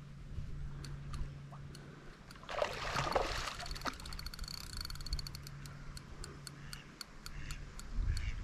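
A hooked barbel splashing and swirling at the river's surface, loudest from about two and a half to four seconds in, over a steady low hum, with a run of quick faint ticks after the splash.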